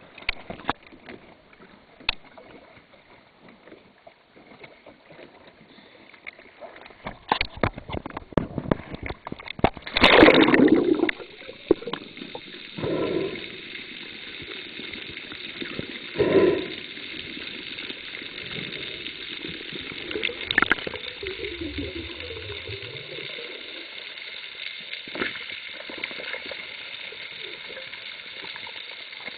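Water sloshing and gurgling, with scattered sharp clicks in the first third and several loud bubbling bursts a few seconds apart in the middle.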